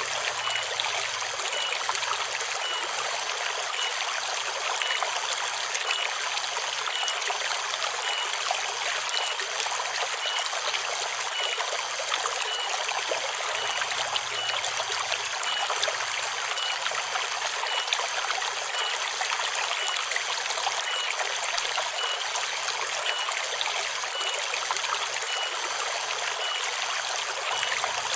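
Forest river flowing and trickling steadily, with cicadas droning high above the water. A faint short high note repeats about twice a second.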